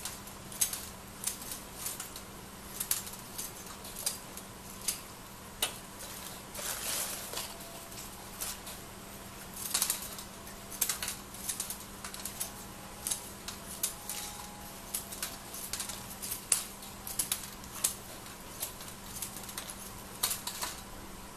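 Scissors snipping Japanese fir sprigs and needles from the branches: irregular sharp clicks, at times in quick runs of several a second.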